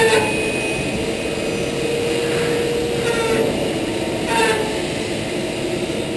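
Automated robotic deburring cell running: a steady machine hum with a held mid-pitched tone. Brief falling whines come at the start and again about four seconds in.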